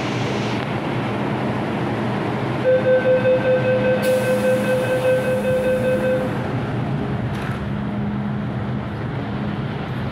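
MTR M-Train door-closing warning: a pulsing buzzer beep, about three pulses a second for three and a half seconds, starting nearly three seconds in, over the train's steady hum. A hiss comes in with the beeping, and a short knock follows about seven seconds in.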